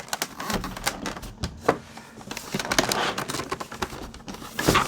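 Irregular clicks and taps from handling the plastic body and wheels of an upright vacuum cleaner, with a louder click near the end.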